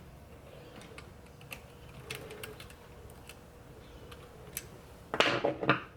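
Scattered light clicks and ticks of a screwdriver and small metal parts being worked inside a truck steering column, with a louder stretch of sound about five seconds in.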